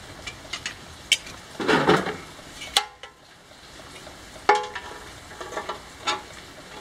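Sheet-metal parts of a dismantled bandsaw being handled on a concrete floor: a string of light clinks and scrapes, then a louder clank about four and a half seconds in that rings briefly as a metal plate is set down.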